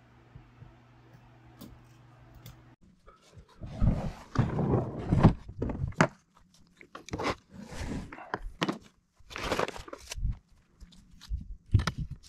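A faint low hum that stops suddenly about three seconds in, followed by a string of irregular crunching and knocking noises, loud and uneven with short gaps between them.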